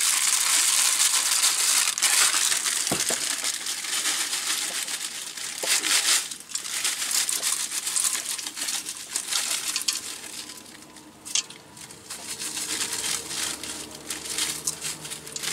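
Plastic bag of green beans crinkling and rustling as it is handled and shaken out into an Instant Pot, with a sharp click about eleven seconds in.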